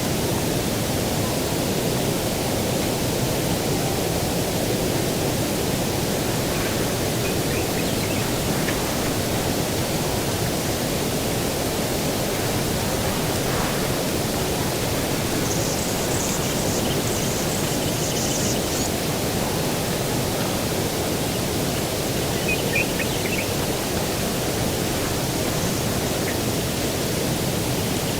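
Steady low rushing outdoor ambience, with a few faint bird chirps and a brief high, buzzy trill about halfway through.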